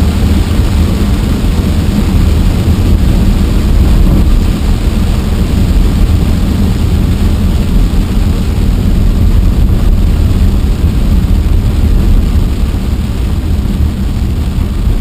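Car driving through heavy rain, heard from inside the cabin: a loud, steady low rumble of road and engine noise with the hiss of rain on the car.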